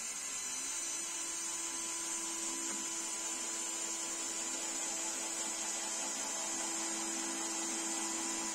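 Electric drill boring holes in wood, its motor running at a steady speed and cutting off near the end.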